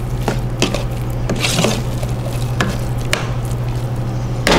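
A metal fork beating mashed potatoes in an aluminium pot, with irregular clinks and scrapes against the pot's side. A steady low hum runs underneath.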